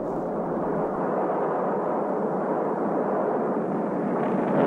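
Sustained rushing rumble of a large explosion, steady and without separate bangs, growing slightly louder about four seconds in.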